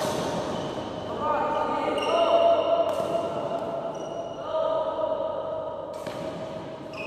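Background song with a singing voice holding long notes that bend in pitch at their starts.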